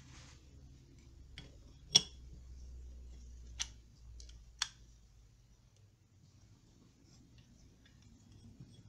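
Sharp clicks and taps of a small plastic toy mirror and its ornate frame being handled and set down, four in the first five seconds, the loudest about two seconds in, over a faint low hum.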